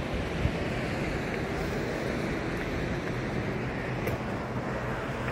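Steady wind rumbling on the microphone in the open air, with a single light tap about half a second in.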